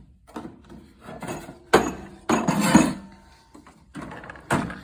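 Tools clinking and clunking in a tool box drawer as they are handled, with several sharp knocks and rattles, loudest about two and three seconds in.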